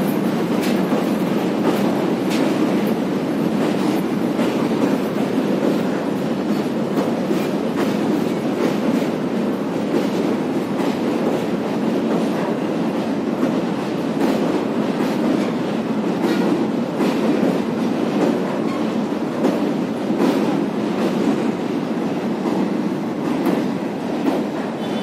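Passenger train coaches rolling past on a steel truss railway bridge: a steady heavy rumble with continual clicking and clacking of wheels over rail joints.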